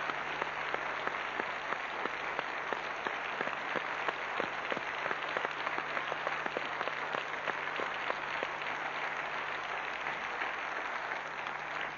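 Studio audience applauding steadily, welcoming a guest just introduced on stage, dying away near the end.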